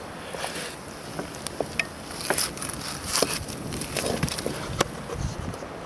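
Wood campfire crackling, with irregular sharp pops and snaps over a low steady hiss.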